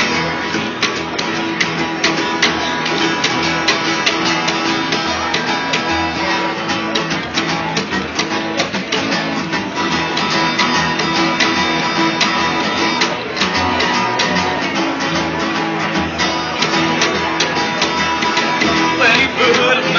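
Rockabilly band playing live, led by guitar over a fast steady beat. A voice rises briefly just before the end.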